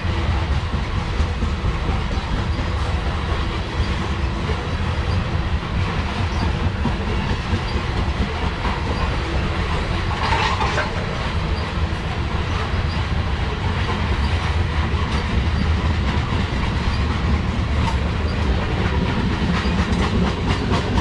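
Loaded coal train's cars rolling past: a steady rumble of steel wheels on rail with continuous clickety-clack of the wheels, and a brief brighter scrape about halfway through.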